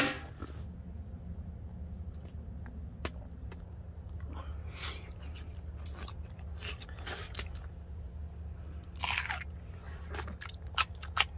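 A person chewing mouthfuls of grilled beef close to the microphone: irregular wet chewing sounds and short clicks, over a steady low hum.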